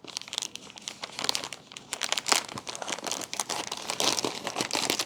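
Plastic shipping bag crinkling and rustling in irregular bursts as it is handled.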